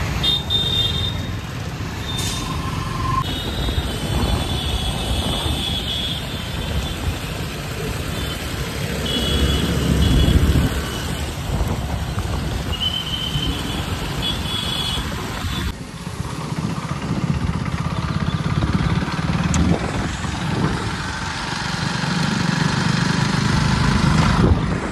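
Busy road traffic: vehicle engines and tyre noise running steadily, with several short high beeps scattered through the first half.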